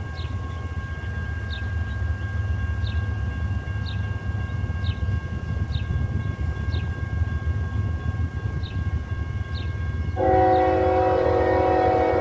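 Train horn sounding suddenly about ten seconds in, a loud chord of several notes held for a few seconds, from a freight train not yet in sight. Before it, a steady low rumble and short high chirps repeating about once a second.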